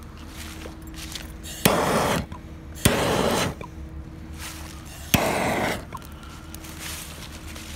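Handheld propane torch fired in three short blasts. Each blast opens with a sharp click and is followed by a rushing hiss of about half a second.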